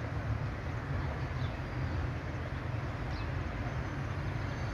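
Steady low rumble of distant vehicles, with a few faint bird chirps.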